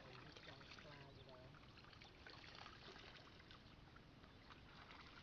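Near silence: a faint background with scattered small clicks and distant voices in the first second or so.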